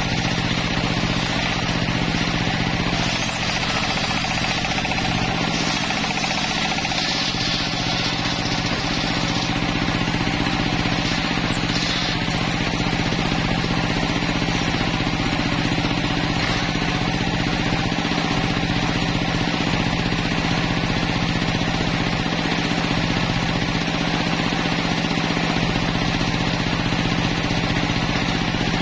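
Homemade circular sawmill running at a steady pitch, its large spinning blade ripping lengthwise through a log.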